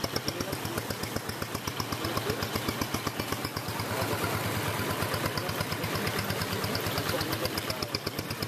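Small motorcycle engine of a motor tricycle running with a fast, even beat as it wades through flood water, with water swishing against the vehicle.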